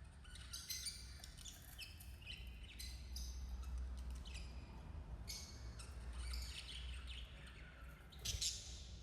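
Budgerigars chattering and warbling: a continuous stream of short, high chirps and twitters, with a louder cluster of calls near the end, over a low steady rumble.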